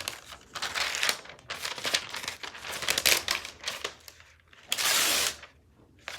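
iPad Air box and its wrapping being opened by hand: irregular crinkling and tearing of paper and plastic packaging, with a steadier half-second rasp about five seconds in.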